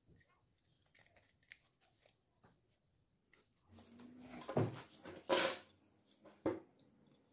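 Small parts and tools being handled on a workbench while a phone charger is taken apart: scattered light clicks and taps, then a short run of louder clatters and knocks, the loudest about two-thirds of the way in.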